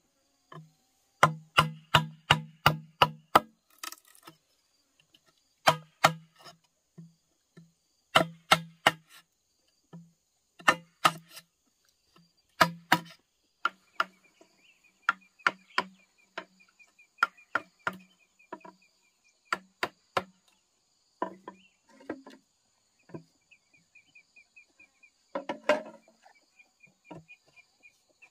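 Chopping with a blade: quick runs of sharp strikes, about three a second, each with a hollow knock. The strikes grow lighter and sparser in the second half. Insects buzz steadily behind, and a rapid chirping joins about halfway through.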